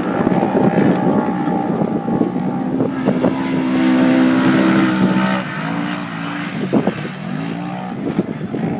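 Off-road race vehicle engine running hard at high revs. Its pitch holds steady for a couple of seconds, drops, then climbs again as it revs back up.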